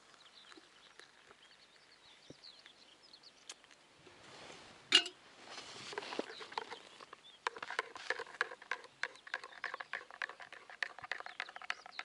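Faint bird chirps, then a single sharp click about five seconds in. From about halfway on, a camp kettle bubbles at the boil: a dense run of rapid ticks over a faint steady hum.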